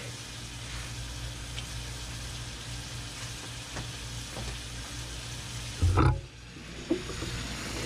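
Steady frying sizzle from a tortilla on a hot cast-iron comal and a skillet of stew on a camp stove. About six seconds in there is a short loud knock and rustle as the camera is picked up and moved, after which the sizzle is briefly quieter.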